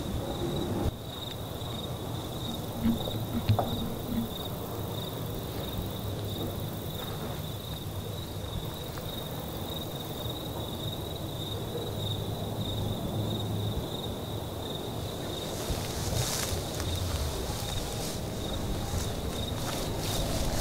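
Crickets chirping in a steady, even high trill over a low outdoor rumble, with rustling starting near the end.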